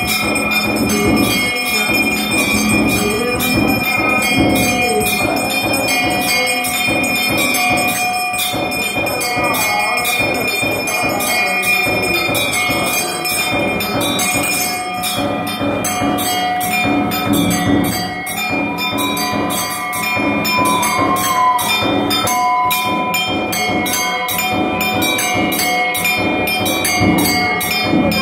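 Brass temple bells ringing on and on, as at an aarti, with music mixed in.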